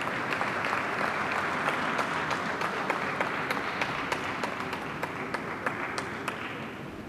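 An audience applauding: many people clapping together, dying away near the end.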